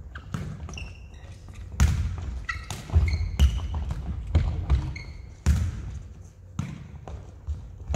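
Jokgu ball being kicked and bouncing on the court: sharp thuds about once a second, with short high squeaks between them and a low rumble underneath.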